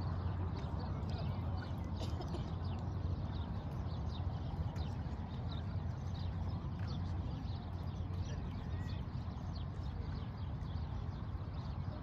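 Many small birds chirping over a steady low rumble.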